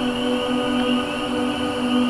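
Background music: a slow ambient drone of steady held tones.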